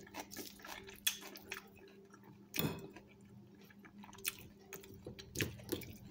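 Fork stirring and tossing a yogurt-dressed lettuce salad on a china plate: soft wet squishing of the leaves with scattered light clicks of the fork against the plate, and one louder scrape about two and a half seconds in.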